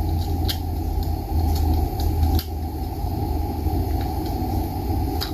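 Knife trimming the leftover off CNC-cut oak bow ties, heard as a few faint sharp clicks over a steady low shop hum.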